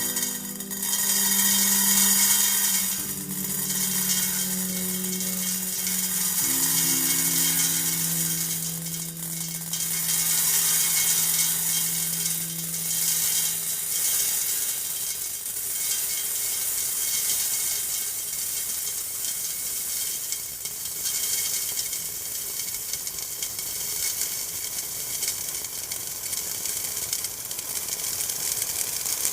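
A long, unbroken stream of metal ball bearings pouring into a metal tray: a dense, continuous rattling clatter. In the first half a low steady hum sits under it, shifting pitch a couple of times before fading out about halfway.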